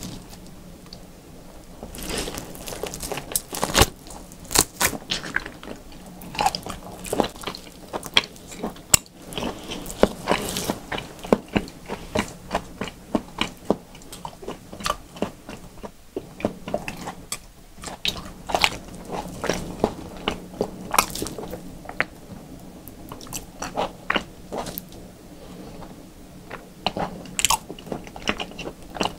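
Biting and chewing a thick slab of raw beef: wet mouth clicks and smacks as the meat is torn off and chewed. It starts about two seconds in and keeps going.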